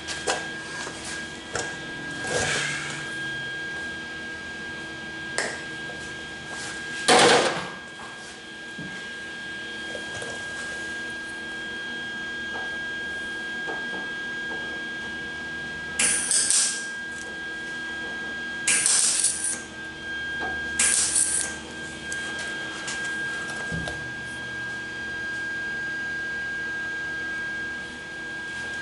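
Welder laying three short tack welds on a steel car door skin, each a crackling hiss under a second long, about two seconds apart in the second half. A loud clunk comes about seven seconds in, and a steady high whine runs underneath.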